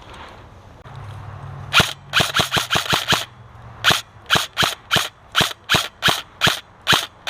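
Airsoft gun firing single shots: a quick cluster of about seven sharp cracks, then about ten more at a steadier pace of roughly three a second.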